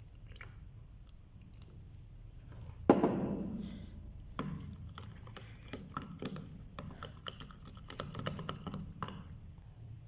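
Yellow slime being worked by hand, with a sharp knock about three seconds in, then a run of sticky clicking and crackling as the slime is mixed and squeezed.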